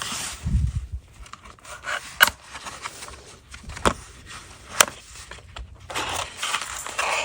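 Handling noises as an all-metal mechanical pencil is taken out of its cardboard box: a soft thump about half a second in, several sharp clicks and taps, and a scraping rustle near the end.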